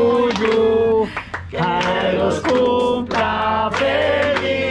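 A group of people singing a birthday song together, in held, drawn-out phrases with short breaks between them.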